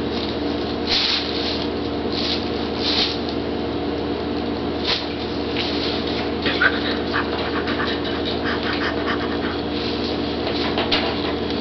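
A kitten making short, soft noises: a few separate ones early on, then a quick cluster about six to nine seconds in, over a steady low hum.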